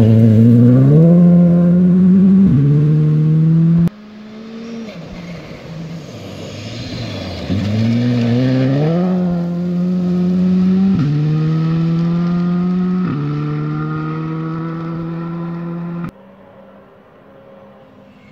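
Rally car engines on a gravel stage, running hard: a car accelerates past, its engine note climbing and dropping at an upshift, then a second car comes near, revs up and shifts up twice, with a hiss of thrown gravel as it passes. The engine sound stops abruptly a couple of seconds before the end.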